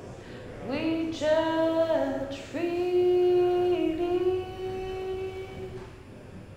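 A woman's voice singing unaccompanied: a swoop up into a few long held notes that step slightly up and down, fading out near the end.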